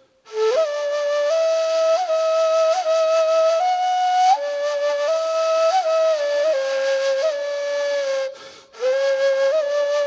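Ney, the Turkish end-blown reed flute, playing a solo melody of held notes joined by small ornamental turns, with an airy, breathy tone. The notes stop briefly for a breath about eight seconds in.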